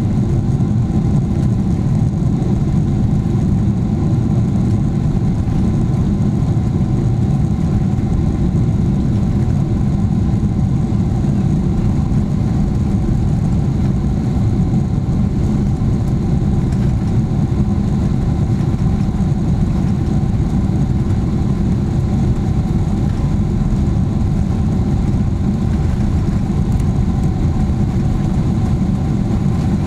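Steady low rumble of a Boeing 777-300ER airliner with its GE90 jet engines running evenly, with faint steady tones above the rumble and no change in pitch or loudness.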